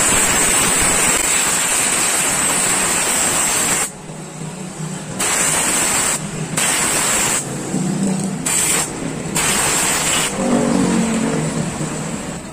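Pressurised jet hissing into a Yamaha Vega Force motorcycle carburetor to clean out its passages. One long blast of about four seconds comes first, then four shorter bursts of up to a second each.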